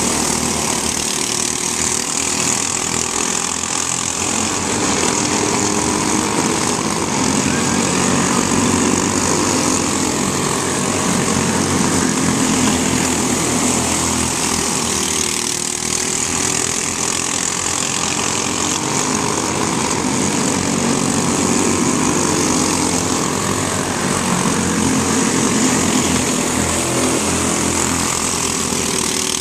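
Several microstock race cars' small engines running together as the cars race around a short oval, a steady drone whose pitch rises and falls as the cars pass and swap places.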